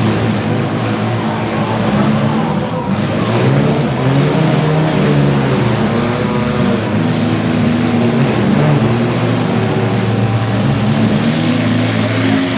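Several demolition derby car engines running loudly at once, their pitches rising and falling as they are revved.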